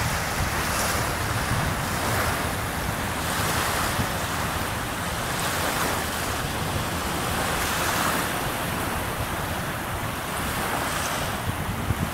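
Small waves breaking and washing onto a sandy lake shore: a steady rush that swells and eases, with some wind.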